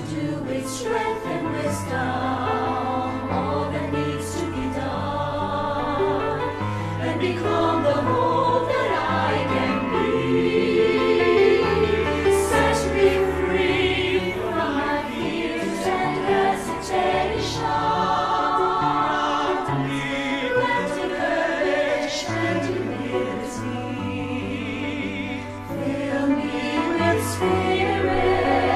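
A choir sings a prayerful English-language song over an instrumental backing with held bass notes. The sung lines run 'To do with strength and wisdom… Set me free from my fears and hesitations… Fill me with the spirit to face the challenge.'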